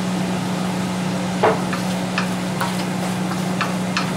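Shrimp sizzling in a wok while a spatula stirs them, striking the pan about twice a second, over a steady low hum.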